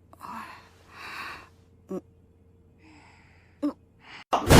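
A person's breathy gasps, two in the first second and a half, followed by a couple of short clicks. Near the end a sudden loud noise cuts in.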